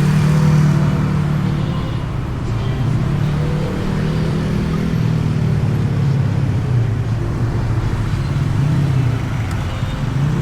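Motorcycle engine running while riding in traffic, its note rising and falling with the throttle, heard from inside the rider's helmet.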